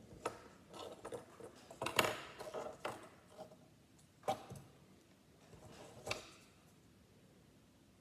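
Small plastic Lego pieces clicking and tapping as minifigure helmets are pulled off and pressed onto the figures: about six separate clicks, the loudest about two seconds in and the last about six seconds in.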